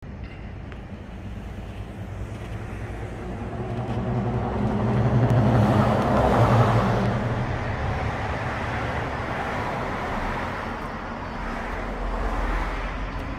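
Street traffic, with a motor vehicle passing close by: its engine and tyre noise swell to a peak about six seconds in, then fade back to a steady traffic hum.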